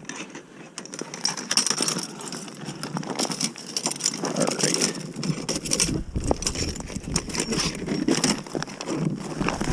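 Steel 330 body-grip (Conibear-type) beaver trap being handled and set: its springs, jaws and chain clink and rattle in a steady run of small metallic clicks, with gloved hands rubbing and bumping against it.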